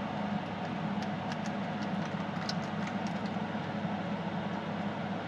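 Small window air conditioner running with a steady hum. Over it, a few light crinkles and clicks of a plastic packet being torn open, between about one and three seconds in.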